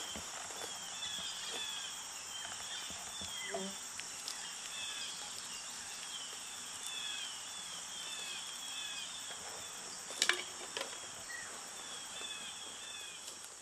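Grassy field ambience: a steady high insect drone, with short falling chirps repeating throughout and a couple of brief rustling knocks about ten seconds in.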